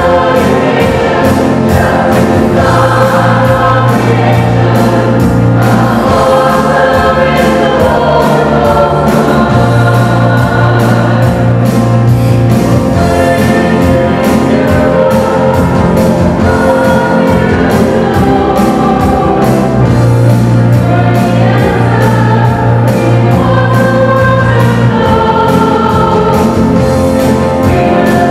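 Church choir singing a gospel-style worship song over instrumental accompaniment, with long held bass notes under the voices.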